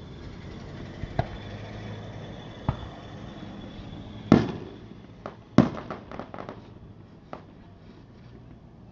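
Aerial firework shells bursting in the sky: separate booms, the two loudest about four and five and a half seconds in, the second followed by a quick run of smaller crackling reports.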